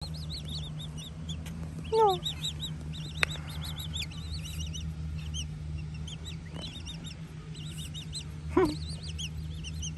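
Young Eurasian coots giving rapid, high-pitched begging peeps over and over, with two louder, lower calls that fall in pitch, about two seconds in and near the end. A sharp click a little after three seconds, and a steady low hum underneath.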